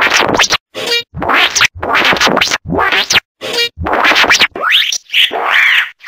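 Synthesized alien duck sound effect: a quick series of about ten short quack-like calls, each under a second with brief silences between them, many sliding up or down in pitch.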